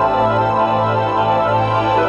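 Slow ambient music: sustained organ-like chords held over a low, gently pulsing bass note, with no beat.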